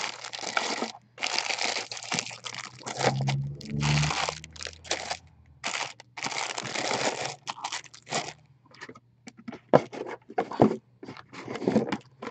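Plastic model-kit packaging crinkling and crunching as bags of parts and the kit boxes are handled, with several sharp clicks and knocks in the second half.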